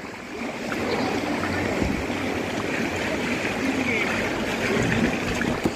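Water churning and lapping in a water-slide splash pool around a rider on an inner tube, a steady rushing noise with people's voices in the background.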